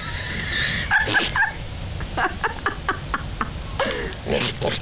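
Animal calls: a few short, high cries about a second in, then a quick run of short, clipped calls, and more cries near the end, over a steady low background rumble.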